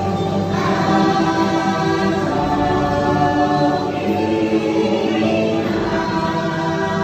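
Choral music from the ride's soundtrack: a choir of voices holding long, sustained chords that shift slowly over a musical backing.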